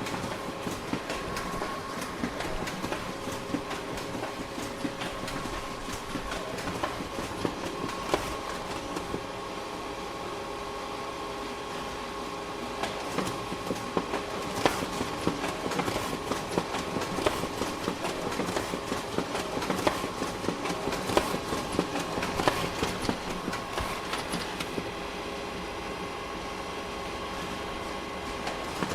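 Photocopier running: a steady machine hum with a constant rapid clatter of clicks and clacks, which grows busier about halfway through.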